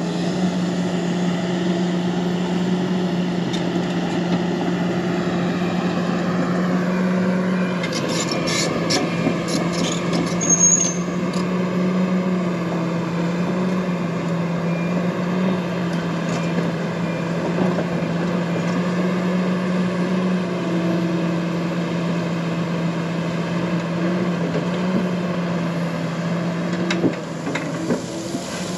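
Excavator diesel engine running steadily under load, dropping a little in pitch about seven seconds in. A few sharp clicks and a brief squeal come around eight to eleven seconds.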